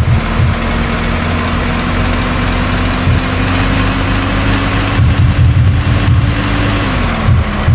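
Engine running steadily, with low rumbling surges in the middle and near the end and a steady tone that drops in pitch shortly before the end.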